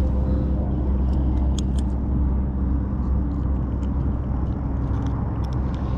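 A motor running steadily with a low, even hum, with a few faint ticks over it.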